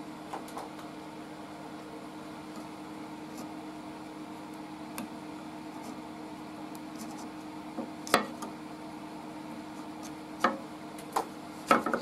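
Clarke Woodworker scroll saw motor running with a steady hum, not under cut. Four or five sharp clicks and taps come in the last third as fingers handle the wood around the blade.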